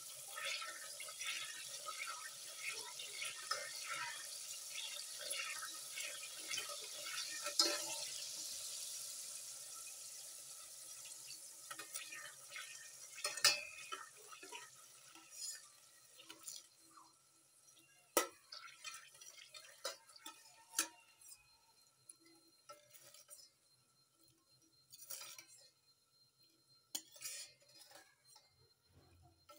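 Grated coconut frying in a steel pot, crackling and sizzling densely at first and thinning to scattered pops after about ten seconds; a steel ladle scrapes and knocks against the pot a few times. The dying crackle is the sign that the last water is boiling off and the coconut oil is nearly ready.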